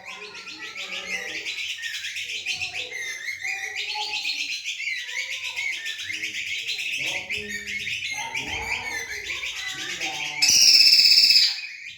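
Kecial kombok songbirds singing against each other: a fast, continuous twittering song, broken near the end by a loud, wavering high whistled phrase.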